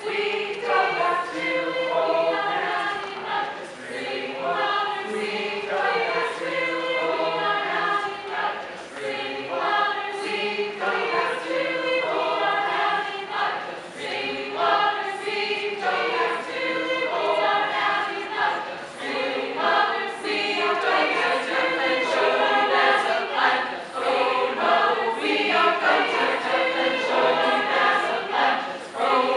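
Unaccompanied chorus of many voices making vocal sounds together, overlapping pitched parts with frequent sharp rhythmic attacks.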